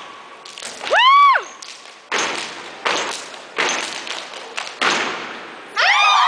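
Step team stepping: about six sharp stomps and claps spread over a few seconds, after a drawn-out shouted call that rises and falls about a second in. Whoops and cheering start near the end.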